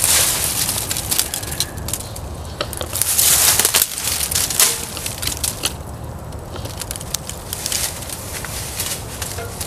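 Dry leaf litter crunching and small twigs crackling underfoot in uneven bursts as someone steps and pushes through brush, with scattered sharp snaps.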